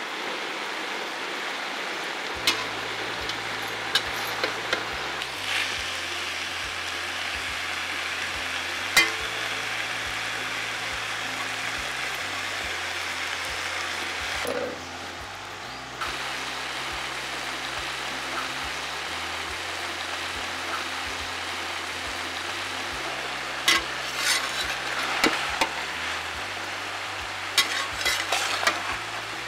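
Cauliflower and bell peppers sizzling as they are stir-fried in an aluminium kadai, with a steady hiss. A metal spatula scrapes and clinks against the pan now and then, most often near the end.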